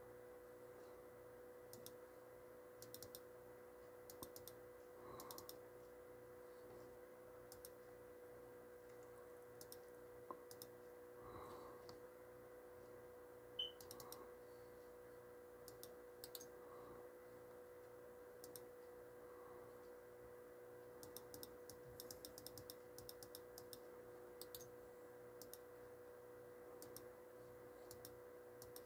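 Faint typing and clicking on a laptop keyboard, in short quick bursts with pauses between, one sharper click about halfway through, over a faint steady hum.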